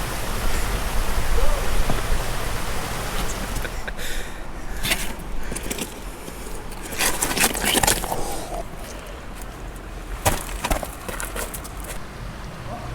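Rushing creek water, which drops away about four seconds in. After that come several short bursts of crackling and snapping.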